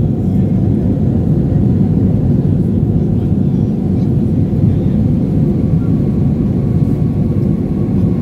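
Steady low roar of a jet airliner's engines and rushing air, heard from inside the cabin during the climb after takeoff.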